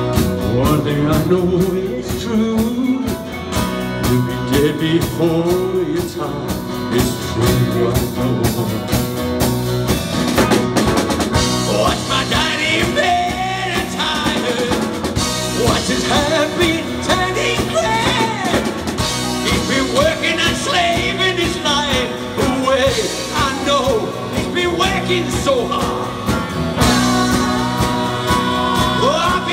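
Live blues band playing an instrumental break: strummed acoustic guitar with a harmonica wailing bent notes over it through the PA. A woman's singing comes back in near the end.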